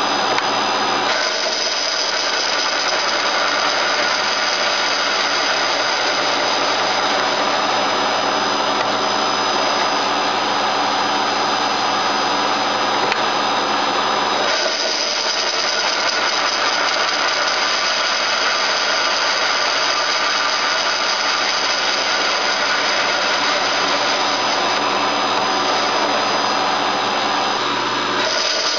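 ACER 1760G geared-head engine lathe running while a carbide insert turns a hardened Stellite tip (mid-to-high 50s Rockwell C): a steady machine whine with a high squeal and the hiss of the cut. The tone shifts about a second in and again about halfway through.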